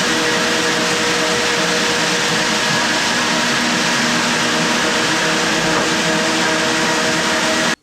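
Hyper Grinder floor sander running steadily while sanding a pine floor with 80-grit, a loud even drone with a few steady whining tones. It cuts off suddenly near the end.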